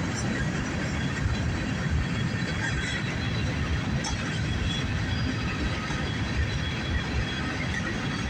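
Loaded grain hopper cars of a CSX freight train rolling past: a steady rumble of steel wheels on rail, with faint high wheel squeal.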